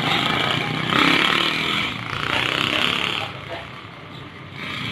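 Busy street noise: a motorbike engine running close by, with people's voices. It quietens about three seconds in.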